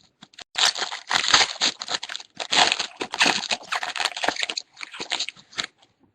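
Crinkling and rustling of a trading-card pack's wrapper being handled and torn open, a dense crackly rustle that stops shortly before the end.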